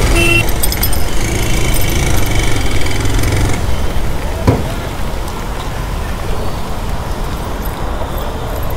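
Road traffic heard from a moving motorbike in heavy rain through a helmet-mounted action camera, with rain and wind noise on the microphone and a bus running close ahead. After about three and a half seconds the noise softens as the bike slows into a parking area, and there is one sharp knock a second later.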